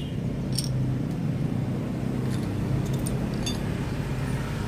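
A few faint metallic clinks as a motorcycle's cam sprocket and timing chain are handled and set down, over a steady low engine drone.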